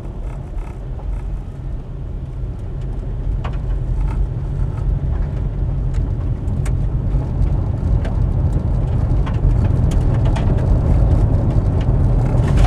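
A car driving, its deep rumble growing louder from about two seconds in as it moves on, with scattered small knocks and rattles.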